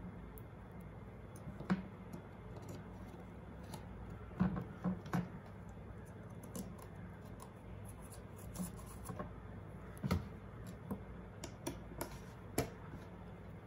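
Scattered light clicks and taps of small screws, a small driver and carbon-fibre plates being handled while a quadcopter frame's top plate is screwed down hand-tight, over a low steady hum.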